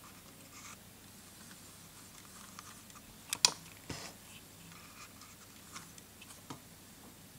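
Quiet room tone broken by a few light clicks and scratchy handling noises, the loudest a sharp click about three and a half seconds in.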